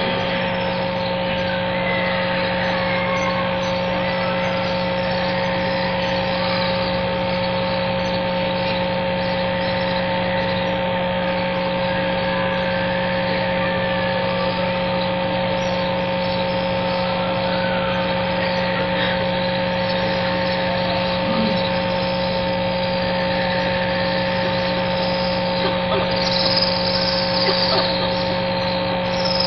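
Steady hum and hiss of a live broadcast feed, with a few constant tones, over the hush of a large congregation at silent prayer; faint voices come and go, a little louder near the end.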